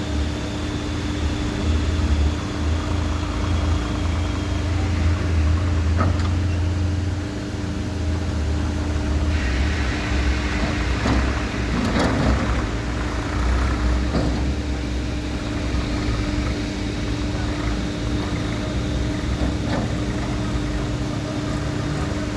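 JCB 3DX backhoe loader's diesel engine running steadily. A few knocks and a spell of louder clatter come around the middle.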